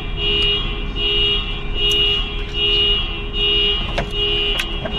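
Car alarm sounding: a steady tone that repeats in pulses just under a second long with short breaks, with a few sharp clicks over it.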